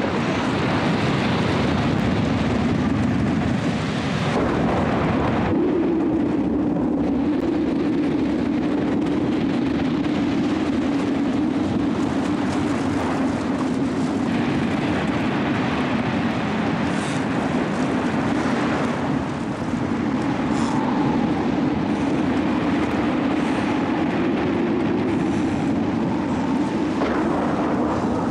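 Rough sea and surf roaring steadily, with a low droning hum running through the roar.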